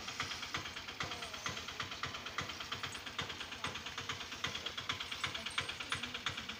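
Auto-rickshaw's small engine idling with an even, fast pulse of about five or six beats a second.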